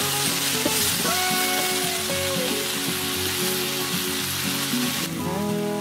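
Sliced bell peppers sizzling in a hot frying pan, with background music underneath; the sizzle drops off abruptly near the end.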